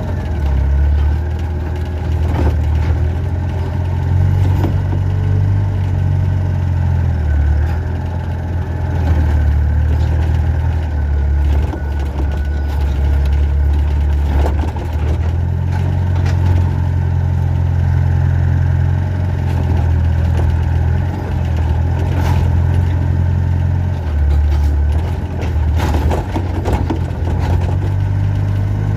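Excavator's diesel engine running steadily, its pitch stepping up and down every few seconds as the load changes, with a few sharp knocks scattered through.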